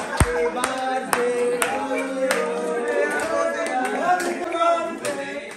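A group of men singing a birthday song together, with hand claps through it.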